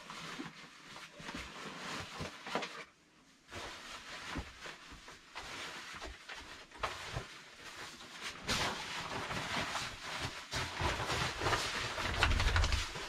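Rustling, clicking and knocking of someone moving about and handling things in a small wooden shelter, with a few heavy low thumps near the end. It drops out briefly about three seconds in.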